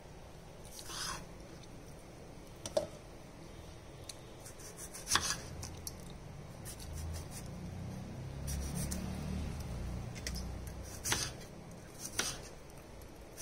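Kitchen knife slicing tomatoes on a wooden cutting board: soft cutting and rubbing with scattered sharp taps of the blade on the board, a few standing out.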